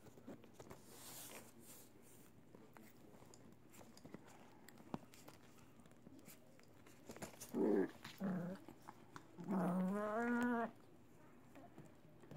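A dog vocalizing: two short calls about seven and a half and eight seconds in, then one longer drawn-out call of just over a second that rises a little in pitch and falls away.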